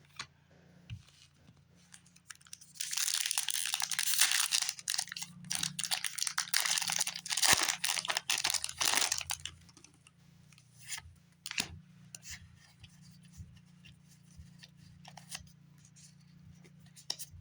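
A foil Pokémon booster pack wrapper being torn open and crinkled for about six seconds, starting a few seconds in. After that, only a few scattered light clicks and rustles.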